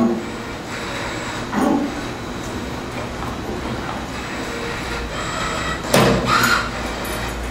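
MTF-40SR spring forming machine running: a steady mechanical hum and hiss, with two short louder bursts of mechanical noise, about a second and a half in and again about six seconds in.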